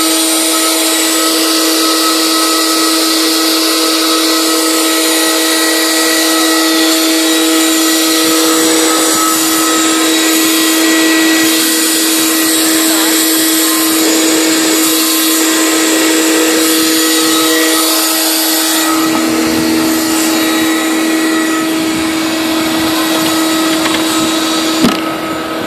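Clarke 576A Carpetmaster carpet extractor's vacuum motor running at full speed with a steady, even whine over a rushing of air.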